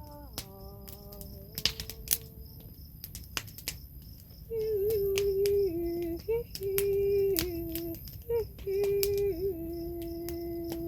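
A woman humming wordless held notes that step back and forth between two pitches, louder from about four seconds in, with short breaks between phrases. Crickets chirp steadily in the background, and scattered sharp clicks are heard.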